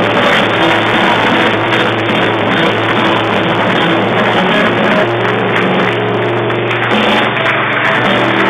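Live band playing rock music loudly: drum kit, bass and guitar, with held bass notes under a dense, steady mix.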